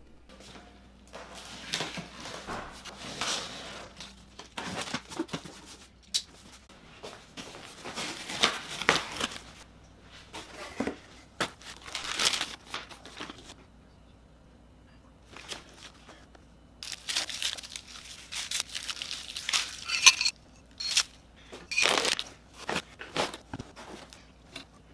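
Unboxing a 3D printer: a cardboard shipping box being opened, its contents pulled from foam packing, with plastic wrapping crinkling and packaging tearing in irregular bursts of rustling and sharp clicks. A quiet spell of a few seconds falls a little past halfway.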